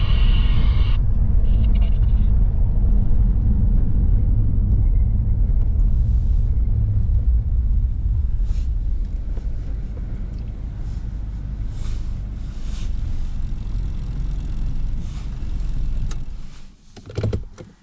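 Road noise heard from inside a small SUV's cabin as it drives a gravel road: a steady low rumble of tyres and engine, easing off as the vehicle slows, then dropping away sharply near the end as it comes to a stop.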